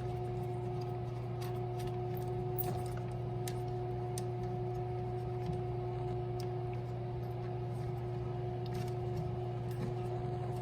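Steady low hum throughout, with faint scattered clicks and ticks of a plastic bidet T-adapter being handled and hand-threaded onto a toilet's water connection.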